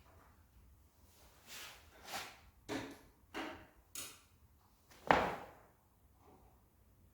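A series of short knocks and scrapes, then one loud thump about five seconds in.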